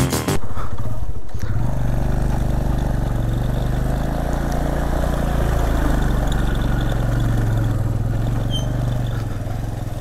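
Motorcycle engine running at low revs while the bike rolls slowly along a dirt track. Its pitch rises and falls gently with the throttle and eases off near the end.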